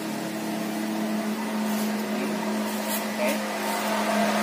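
A steady, even motor hum at one low pitch.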